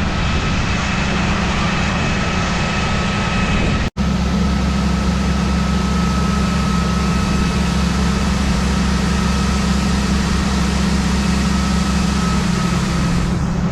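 Case IH 7120 Axial-Flow combine running steadily, a low drone of engine and machinery with a faint steady whine above it. The sound cuts out for an instant about four seconds in.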